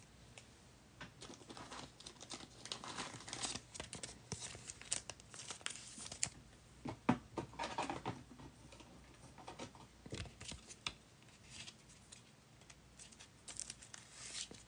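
Trading-card packaging being handled off to the side: plastic wrap torn and crinkled in short, quiet spells, with small clicks and rustles between.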